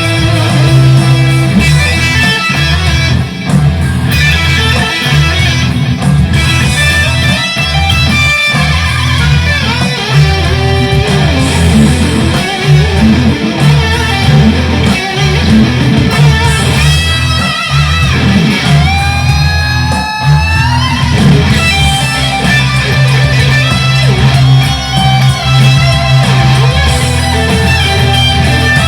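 Fender Stratocaster electric guitar played through a BOSS Katana amplifier, improvising continuous lead lines over a steady low accompaniment. About two-thirds of the way through, one note slides upward in pitch.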